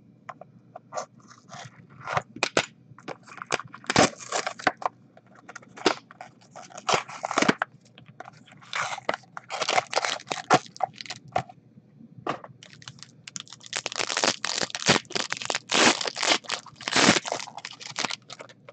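Foil trading-card pack wrapper being torn open and crinkled by hand, with some handling of the cardboard box: irregular crackling and tearing, busiest in the last few seconds.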